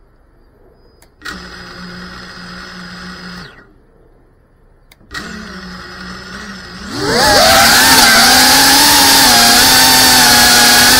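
FPV quadcopter's brushless motors and propellers spinning at idle for a couple of seconds, stopping, and spinning up at idle again, then throttling up sharply about seven seconds in to a loud whine that wavers in pitch as the drone takes off and flies.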